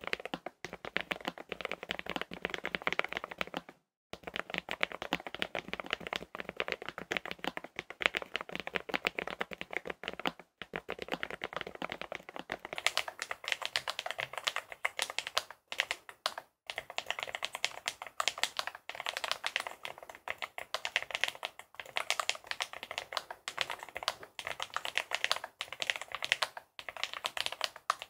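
Continuous typing on a Lofree Edge low-profile mechanical keyboard with Kailh POM 2.0 linear switches and stock PBT keycaps: dense key clicks with a couple of brief pauses. About 13 s in, the recording changes to a close-up take with much less bass.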